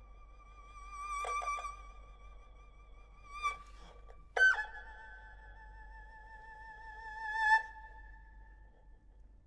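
Solo erhu holding long high notes with a wide vibrato, broken by a few quick ornaments; about four and a half seconds in a sharp accented attack lands on a lower note, which is held, swells near the end and dies away.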